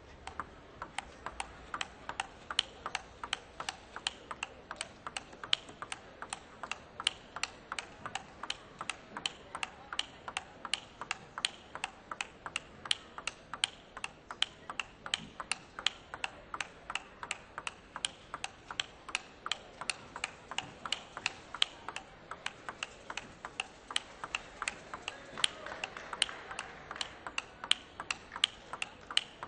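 Table tennis knock-up: the ball ticking back and forth off the rackets and table in an unbroken steady rhythm, about three hits a second, the continuous warm-up rally before play starts.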